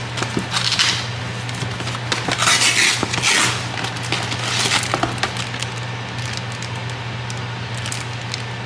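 Cardboard shrimp box and the plastic bag inside it being opened and handled, rustling and crinkling in several short bursts over the first five seconds, over a steady low hum.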